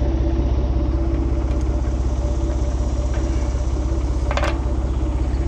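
Tractor engine idling steadily behind the hay mower-conditioner, with a single sharp clank about four seconds in as the mower's transport lock is worked by hand.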